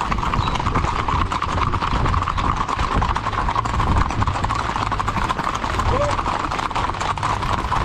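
Horses' hooves clip-clopping steadily, many hoofbeats overlapping in a dense patter.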